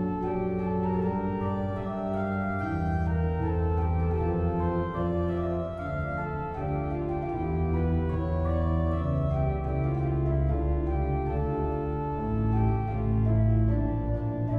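Cathedral pipe organ playing a piece in sustained chords that change every second or so, over deep held pedal bass notes.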